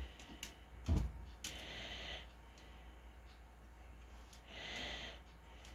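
Quiet handling noise: two light knocks, one at the start and one about a second in, with a couple of soft rustles, over a faint low hum.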